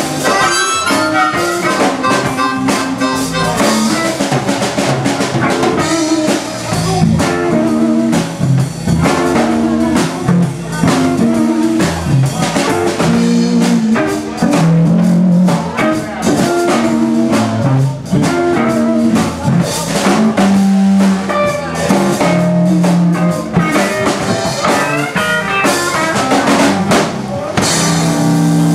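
Live blues band playing: electric guitar over drum kit and bass guitar, with sustained notes held near the end.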